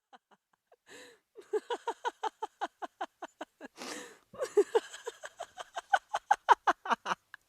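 A woman laughing hard in a rapid run of short ha-ha bursts, each dropping in pitch, broken by a long wheezy in-breath about four seconds in.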